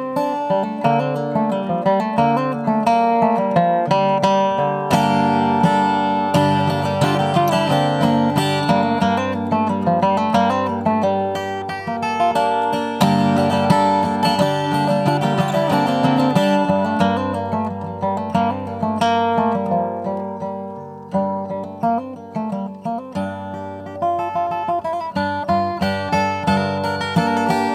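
Acoustic guitar played solo, picked and strummed chords in a steady rhythm. It grows softer for a few seconds about two-thirds of the way through, then picks up again.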